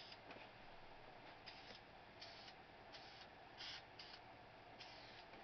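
Faint, short hisses of an aerosol spray paint can, about eight brief sprays at irregular intervals.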